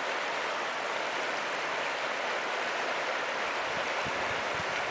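Steady rush of a shallow river running over a gravel bed.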